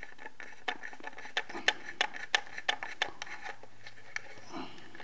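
Small Phillips screwdriver backing out a tiny screw inside a plastic SimpliSafe base station: a run of irregular small clicks and scratches, several a second.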